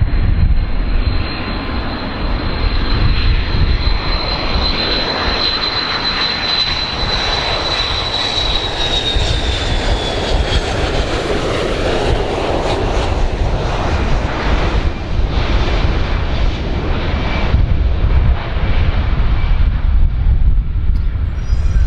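Boeing 727 jet on landing approach: steady jet roar from its rear-mounted Pratt & Whitney JT8D turbofans, with a high whine that falls slightly in pitch about ten seconds in as the plane passes.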